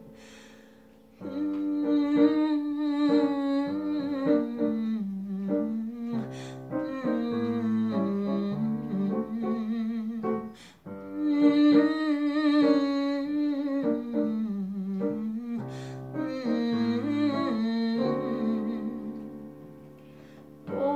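A woman humming a wordless melody with vibrato over piano accompaniment, in several phrases separated by brief pauses.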